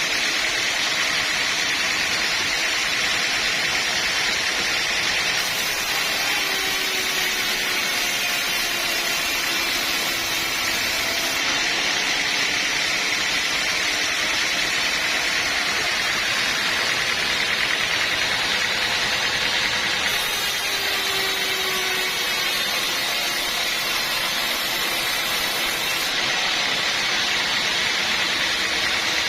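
Sawmill machinery running steadily: a continuous mechanical noise of saw and drive, with a faint lower tone that dips and recovers a couple of times.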